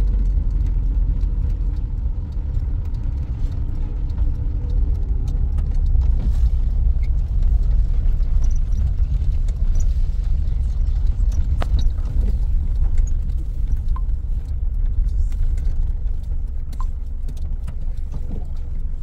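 A car driving: a steady low engine and road rumble, with light rattling and clicking over it.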